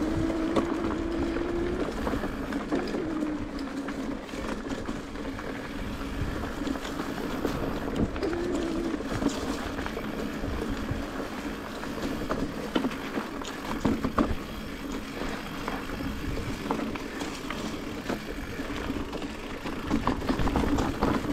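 Mountain bike riding a rough dirt singletrack: tyres rolling over stones and roots, the bike knocking and rattling on the bumps, with a low steady hum that wavers in pitch in the first half.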